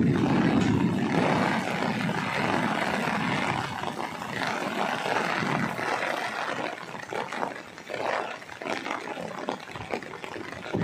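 Strong wind gusting in heavy rain, buffeting the microphone. A heavy low rumble at the start gives way to a rushing, rising-and-falling hiss of wind and rain.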